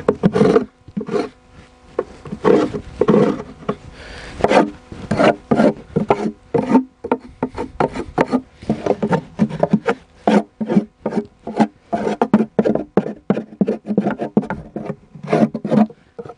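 Metal hive tool scraping the inside bottom of a wooden beehive box in short, irregular rasping strokes, coming quicker in the second half. It is scraping off propolis and debris after the box was heated with a blowtorch.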